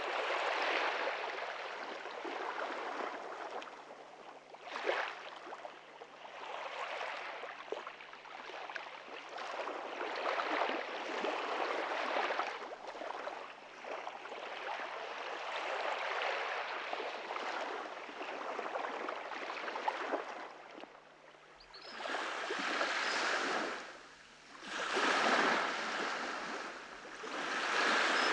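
Ocean waves washing onto a beach in repeated swells of surf. Near the end, several louder breakers come a couple of seconds apart.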